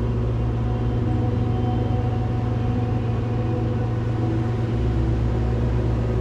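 Cessna 182's six-cylinder piston engine and propeller running at a steady cruise, a constant drone heard inside the cabin.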